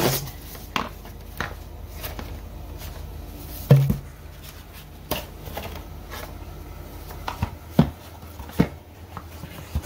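Hands handling packaging and items from the inverter box: irregular knocks and clicks, the loudest knock about four seconds in, over a low steady hum.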